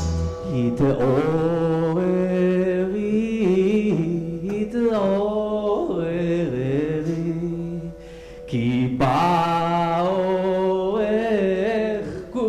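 A man singing a wordless, wavering, ornamented melody on vocal syllables, with a short pause about two-thirds of the way through.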